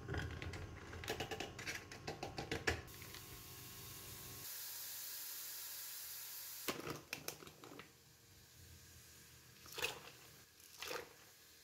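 Diced pancetta tipped from a plastic tray into a hot nonstick pan: a quick patter of pieces landing and plastic crinkling, then a steady sizzle for a few seconds. A few separate clatters of cookware follow later.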